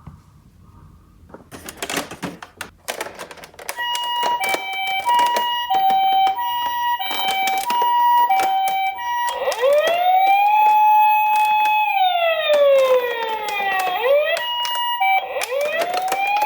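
Toy ambulance's electronic siren: a two-tone hi-lo pattern that starts about four seconds in, then changes to a rising and falling wail about halfway through. Clicks and rattles sound throughout, starting shortly before the siren.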